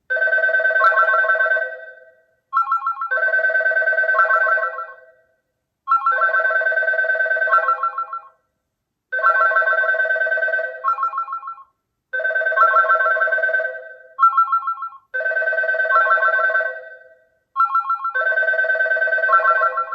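Samsung Galaxy Ace smartphone playing the SkyPhone app's incoming-call ringtone: a warbling electronic telephone-style ring that repeats about every three seconds.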